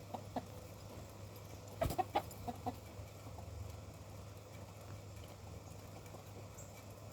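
Chickens clucking: a few short clucks at the start, then a quick louder run of clucks about two seconds in, over a steady low hum.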